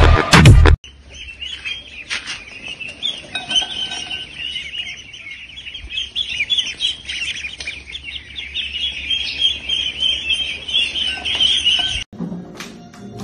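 A brief loud burst at the start, then many small birds chirping rapidly and continuously, overlapping in a dense high twitter. The chirping cuts off suddenly near the end.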